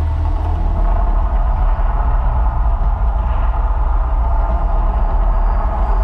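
Deep, steady rumble from the Mirage volcano show's loudspeakers, the sound effect that builds before the eruption.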